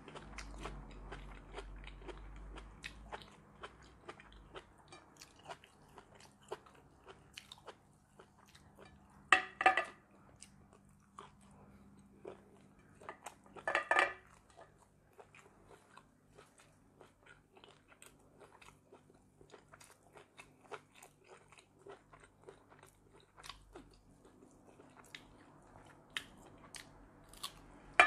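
A person chewing close to the microphone with many small wet mouth clicks and smacks, while eating raw vegetables and blanched beef dipped in chili paste. Two short, louder crunching bites come about nine and a half and fourteen seconds in.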